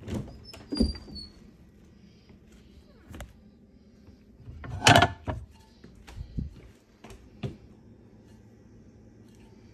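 Scattered knocks and clunks of things being handled during kitchen preparation, with a short high squeak about a second in and the loudest clunk about five seconds in.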